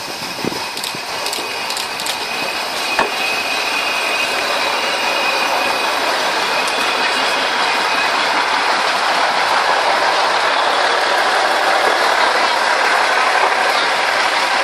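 Diesel railcar (KRD) pulling slowly away under power: a steady rushing engine-and-running noise that builds over the first few seconds, with a few sharp clicks near the start.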